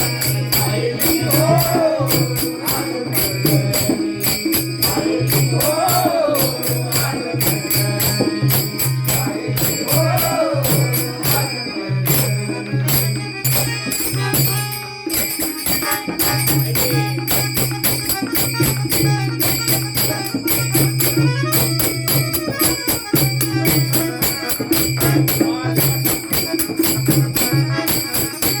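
Instrumental interlude of a Marathi devotional song (abhang): fast, even jingling percussion over a low sustained drone, with a wavering melody in roughly the first ten seconds. The drone drops out briefly about halfway through.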